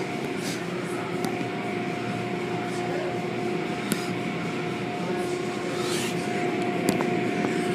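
Automatic car wash heard from inside the car: cloth brush curtains and water sweeping over the hood and windshield, a steady rushing wash under a constant machine hum, with scattered sharp taps.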